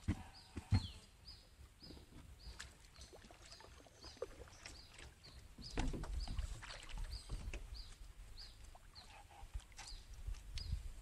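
Knocks and handling noise in a small fishing boat as a long bamboo rod is worked, with a sharp knock early on and a louder stretch of low rumbling when the rod is raised. Behind it, a faint high, falling chirp repeats evenly about twice a second.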